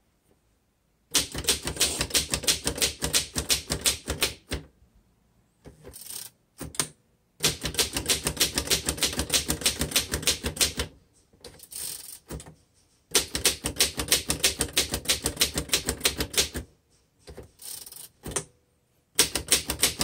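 A 1924 Royal 10 manual upright typewriter being typed on: runs of rapid key strikes, the typebars clacking against the platen, in four bursts of a few seconds each separated by short pauses.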